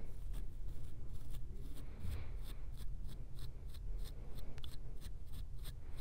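A tail comb scratching along a dandruff-flaked scalp through short, tightly coiled hair in quick, short strokes, about three to four a second, growing denser in the second half. A slow, heavy breath can be heard about two seconds in.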